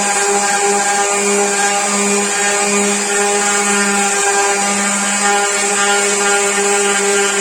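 Electric power tool running steadily at constant speed, a loud even hum with a hiss over it.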